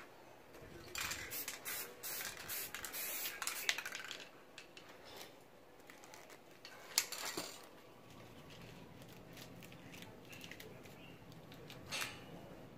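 Aerosol spray paint can hissing in a series of short bursts for a few seconds, followed by a sharp click about seven seconds in and one more short burst near the end.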